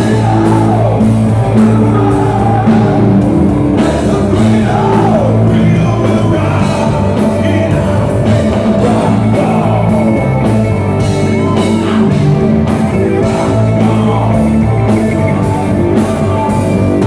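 A live rock band playing loudly, with drums, bass, keyboards and electric guitar, and a singer over the top.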